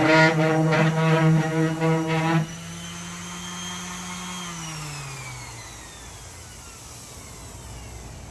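Electric power tool motor running at a steady pitch, switched off about two and a half seconds in. It then winds down with a falling whine that fades away over the next few seconds.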